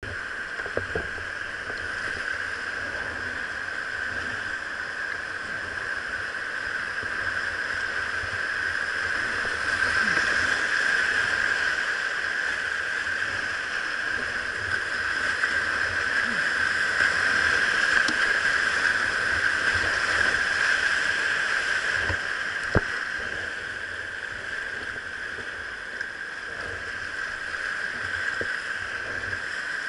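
Rushing whitewater of the Arkansas River heard from a kayak: a steady, hissing rush that swells and eases, with a few sharp knocks, the loudest about three-quarters of the way through.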